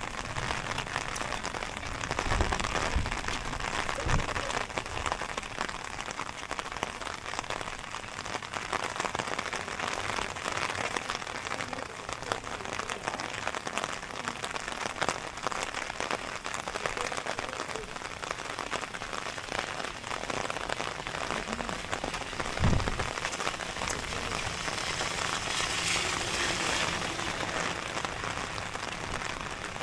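Steady rain falling and pattering on the ground and surfaces, with a few low thumps, and the hiss growing briefly brighter near the end.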